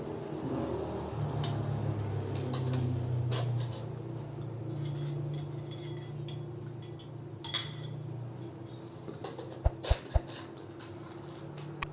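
Dishes and cutlery clinking now and then over a steady low hum, with a sharper clink about two-thirds of the way through and a few quick knocks near the end.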